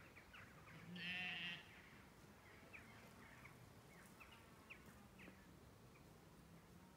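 A sheep bleats once about a second in, a short wavering bleat, over faint scattered bird chirps.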